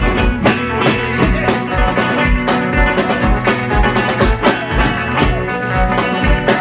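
Live band playing an instrumental passage with no vocals: guitar over drums, with a steady low kick-drum beat of about two and a half beats a second.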